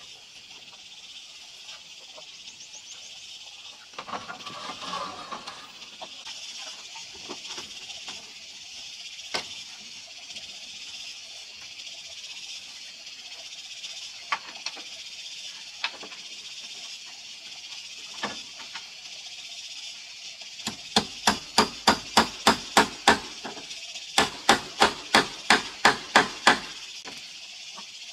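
Hammer driving nails through the ridge cap of a corrugated roof: two quick runs of about ten blows each, some three to four a second, with a short pause between them.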